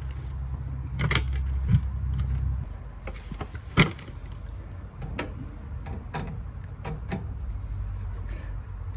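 Scattered sharp clicks and light knocks of hand work on wire connections as they are twisted and tightened, over a low steady hum that drops off about two and a half seconds in.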